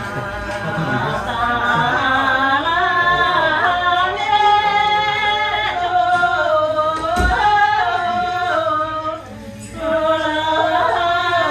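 Singing with long, held, wavering notes, broken by a short pause near the end. A single dull thump comes about seven seconds in.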